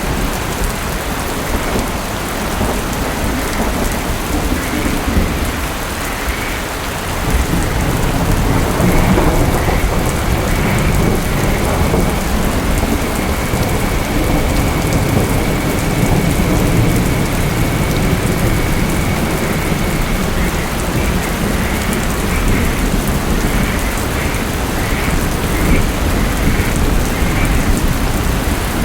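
Steady rain falling, with low thunder rumbling underneath that grows louder about a quarter of the way in and keeps rolling.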